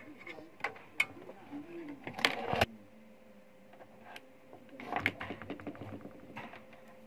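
Scattered small clicks, knocks and rustles from handling the wiring and plastic housing of an opened rice cooker, loudest about two seconds in, over a faint steady hum.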